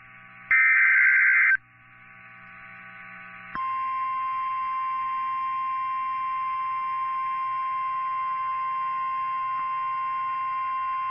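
The last of the Emergency Alert System's digital header bursts: about a second of loud, buzzy data tones. About two seconds later the steady single-pitch NOAA Weather Radio warning alarm tone, near 1050 Hz, begins and holds; it signals that a warning is about to be read.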